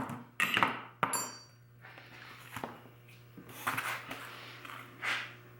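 Metal clinks and knocks of pliers and angle grinder parts being handled and set down, a few separate strikes; the one about a second in rings briefly. A steady low hum runs underneath.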